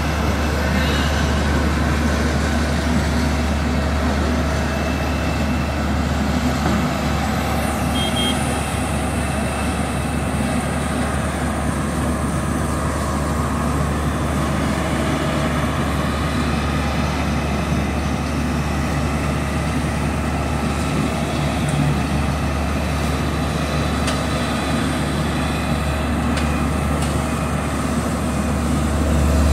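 Diesel engine of a Bomag VDA 421 asphalt paver running steadily while paving, a deep, even drone, with a dump truck's engine just ahead; the drone swells slightly near the end.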